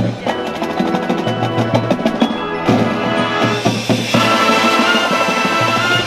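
Marching band playing live: percussion with rapid mallet and drum strikes over held notes, then the full band comes in more strongly about three seconds in.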